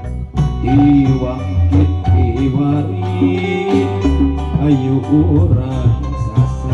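Live band music: kendang hand drums keeping a steady rhythm, with violin and electronic keyboard carrying the melody.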